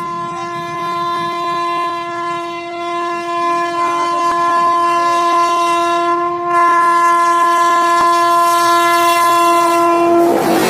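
Electric locomotive horn held in one long, steady, unbroken blast as the express approaches at speed, growing louder about two-thirds of the way through. Near the end the horn cuts off and the loud rush of the fast train passing close by takes over.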